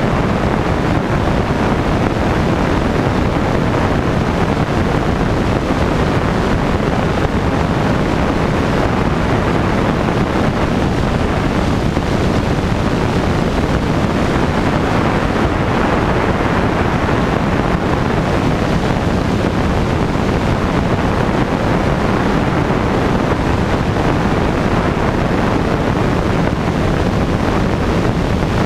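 Light aircraft in flight: a steady rush of wind buffeting the microphone over the drone of the engine and propeller.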